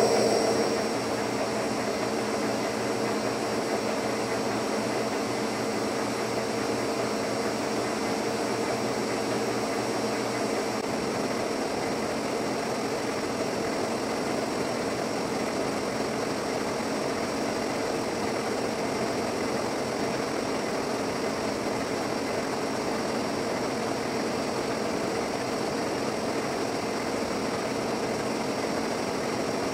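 Lucas 41 horizontal boring mill running steadily: a continuous machine hum with a high whine over it, slightly louder in the first second.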